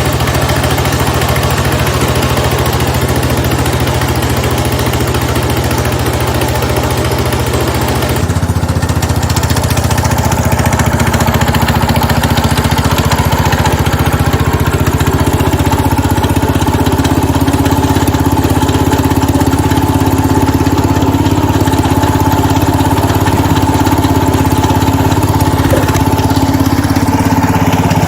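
A 1970 Cub Cadet 127 garden tractor's single-cylinder Kohler engine running steadily, freshly fitted with a new head gasket and running well. Its note changes about eight seconds in, and a steady whine joins it soon after.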